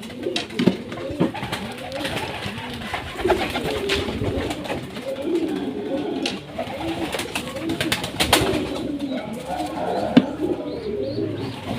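Domestic pigeons cooing over and over, with a few sharp clicks among the calls.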